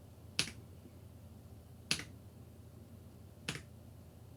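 Three single keypresses on a Keychron K6 Pro mechanical keyboard with brown switches, about a second and a half apart, each a short, sharp click. This is the lighting-effect key being pressed to step through the backlight modes.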